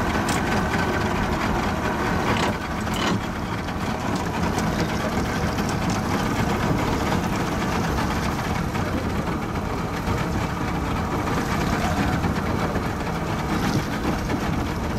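Boat's outboard motor idling steadily, mixed with wind and water noise, with a few brief clicks about two and a half to three seconds in.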